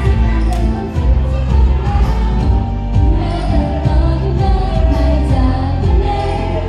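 Idol-pop song played loud over a concert sound system, with a heavy bass beat and a girl group's voices singing.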